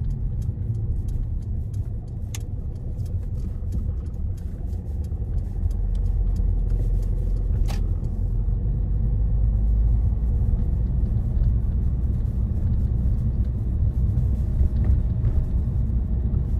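Car driving along: a steady low rumble of engine and road noise, with a run of faint ticks through the first half and a sharper click near the middle.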